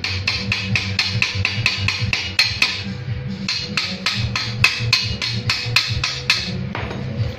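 Hammer striking steel in a quick, even series of about five taps a second on a freshly welded vise joint, chipping off the weld slag, stopping near the end. Background music runs underneath.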